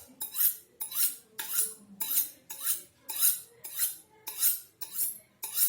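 Kitchen knife being honed on a steel: the blade scraped quickly along the rod in a steady run of short metallic strokes, about two a second.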